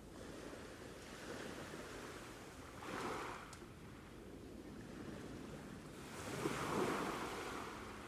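Sea waves breaking, swelling twice: briefly about three seconds in, and longer and louder near the end.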